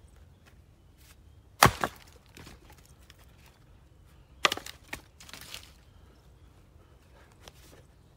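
A splitting axe strikes a round of black locust firewood on a chopping block about a second and a half in: a sharp crack with a quick second knock as the wood splits. About three seconds later split pieces land with a clatter of wood on wood, and the next axe blow lands at the very end.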